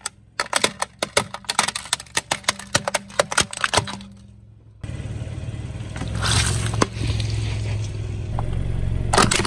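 Car tyre rolling over a plastic toy guitar: a quick run of sharp plastic cracks and snaps for about four seconds. After a short lull, a low car engine rumble with a hissy crunch of crushed water beads, and a few cracks near the end.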